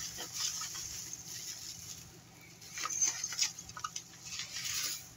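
Plastic bubble wrap crinkling and rustling as it is pulled off a toy by hand, with a few sharper crackles about three seconds in.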